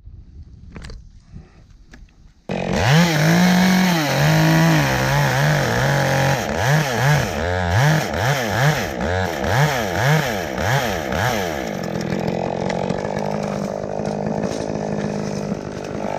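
Chainsaw starting up suddenly about two and a half seconds in and revving up and down repeatedly, then running at a steadier speed for the last few seconds.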